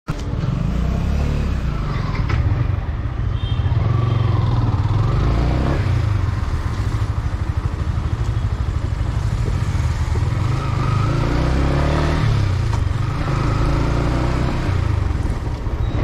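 Yamaha MT-15's 155 cc single-cylinder engine running through its stock exhaust at low revs while the bike is ridden slowly, a low, rapidly pulsing exhaust note.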